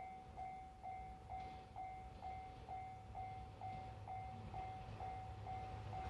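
Japanese railway level crossing's electronic warning bell ringing steadily at about two strikes a second, the signal that a train is approaching the crossing.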